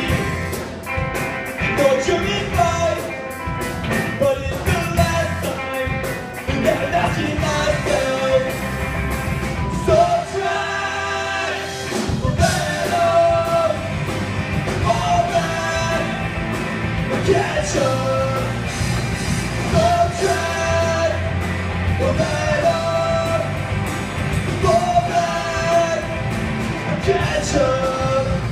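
Live punk rock band playing: distorted electric guitars, bass and drums with sung vocals, recorded from the audience. About ten seconds in, the bass and drums drop out for a couple of seconds, then the full band comes back in.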